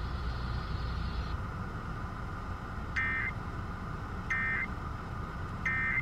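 Three short warbling data bursts, about 1.3 s apart, of the Emergency Alert System end-of-message code over an FM car radio, signalling that the tornado warning broadcast is over. A steady car cabin hum runs underneath.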